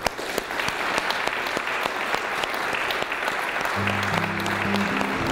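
An audience applauds steadily in a hall. Instrumental music comes in about three-quarters of the way through.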